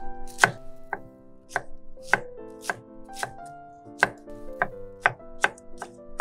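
Chef's knife dicing green bell pepper on an end-grain wooden cutting board: sharp chopping knocks of the blade against the wood, about two a second, over background music.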